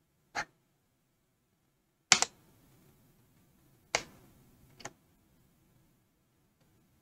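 A few sharp clicks from computer input at a desk: one click, a quick double click about two seconds in, then two more clicks about four and five seconds in, over a faint low hum.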